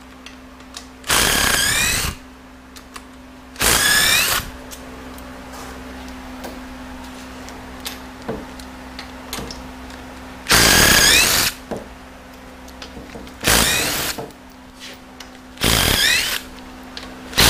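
Cordless power tool with a 15 mm socket backing out the extension housing bolts on a 68RFE automatic transmission, some of them tight. It makes five short runs of about a second each, the motor's pitch gliding as it spins up and down, with small clicks of handling in between.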